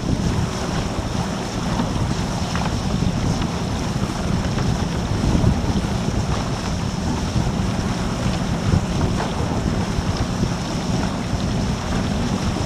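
Wind buffeting the microphone over choppy water rushing past a surfski's hull, with a motorboat running close alongside and throwing its wake.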